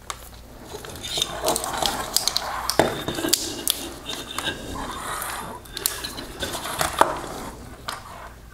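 Plastic connectors and bundled wires of a car headlight wiring harness being handled on a wooden workbench: irregular rustling with many small clicks and knocks, two sharper knocks about three seconds in and about seven seconds in.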